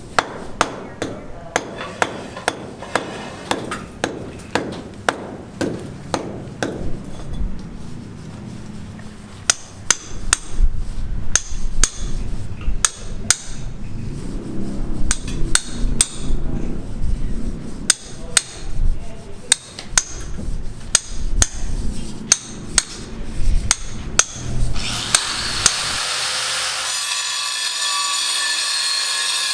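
Repeated, irregular hammer blows. Near the end a power saw starts and cuts steadily.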